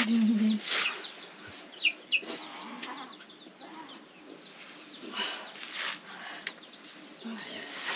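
Domestic chickens calling from the yard: a scattered run of short, high, falling clucks and peeps.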